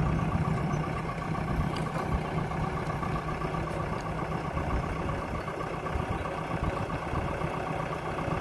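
JCB backhoe loader's diesel engine idling steadily.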